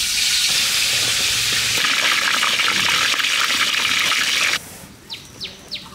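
Whole marinated chicken sizzling in hot oil in a karahi, a loud steady hiss of frying that cuts off suddenly about four and a half seconds in. A bird chirps a few times near the end.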